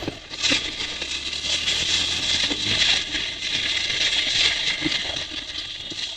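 A motorcycle moving over a rough dirt track, with rattling, crackling and scraping from the bike and the ground. A low engine hum fades away about halfway through.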